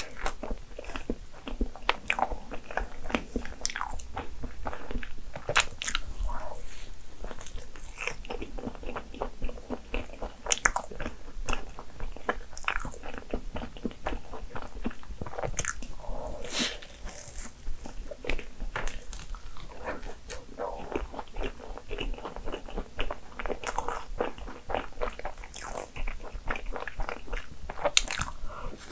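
A person eating fresh-cream crepe cake close to the microphone: chewing with many small, irregular mouth clicks and wet sounds.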